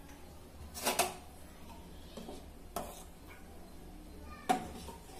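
Pots and metal kitchen utensils knocking and clinking: a quick double knock about a second in, another knock near the three-second mark, and the loudest, sharpest clink about four and a half seconds in.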